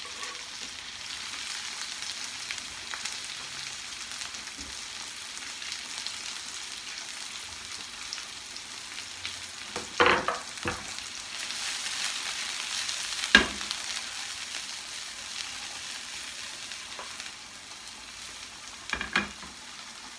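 Sliced champignon mushrooms and fresh garlic sizzling steadily in a hot frying pan. A few sharp knocks cut in, about ten seconds in, again a few seconds later, and near the end.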